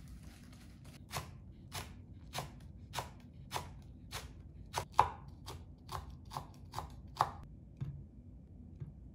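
Chef's knife mincing green onion and green chili on a wooden cutting board: a dozen or so even knocks, a bit under two a second, with two fainter knocks near the end.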